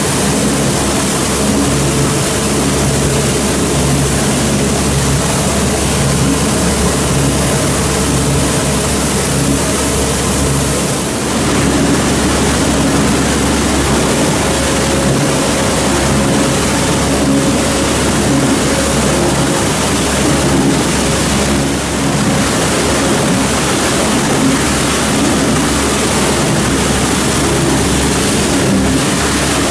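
Plastic film recycling and extrusion line running on the plant floor: a loud, steady machine drone with a few constant hums in it. The mix shifts slightly about eleven seconds in.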